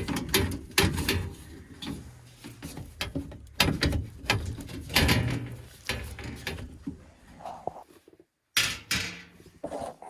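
Sheet-metal furnace access panel being handled and taken off: a run of irregular knocks, clicks and scrapes of metal.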